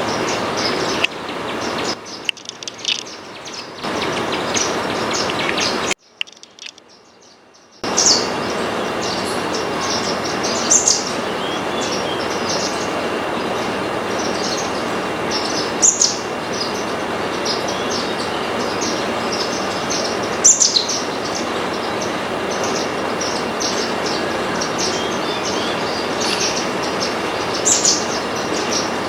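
Small seed-eating birds, munias, giving short high chirps every few seconds over a steady, noisy background hum. The sound dips about two seconds in and drops almost to silence for about two seconds around six seconds in.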